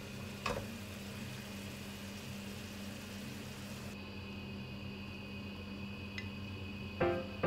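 A steady low mechanical hum, like a kitchen appliance motor, under faint hiss while hamburg steaks cook in a frying pan, with one light clink of a utensil against the pan about half a second in.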